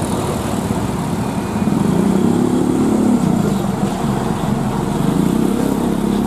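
Heavy trucks' diesel engines running close by: a steady engine drone over a low rumble that grows louder and rises a little in pitch about two seconds in.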